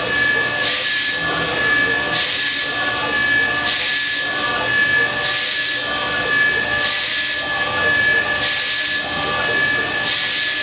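Spindle of a C.R. Onsrud F74HD15 5-axis CNC router running with a steady high whine while a small cutter machines a ball inside a cube, with a hiss swelling about every one and a half seconds as the tool sweeps through the block.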